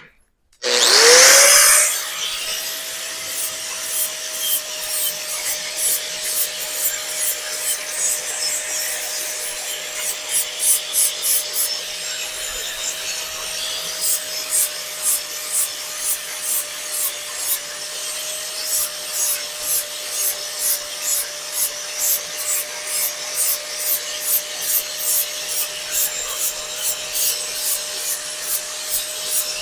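Angle grinder spinning up about a second in, then running with a steady whine while it cleans up a fresh weld on a steel exhaust tube, the disc scraping across the metal in regular passes about twice a second.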